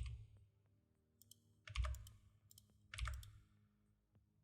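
Computer keyboard keys being pressed in short clusters of clacks, three times a little over a second apart.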